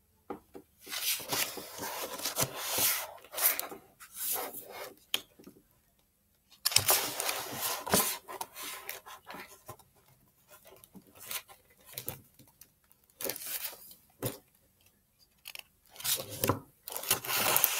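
Pages of a picture book being turned and handled close to the microphone: irregular bursts of paper rustling and rubbing, broken by short quiet gaps and a few sharp clicks.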